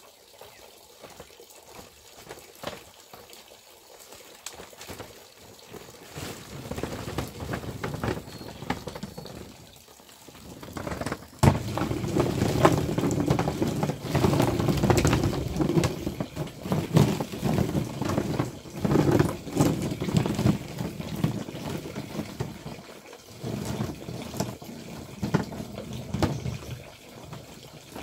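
Water splashing and pouring, mixed with uneven knocks and handling sounds; it gets much louder after a sharp click about eleven seconds in.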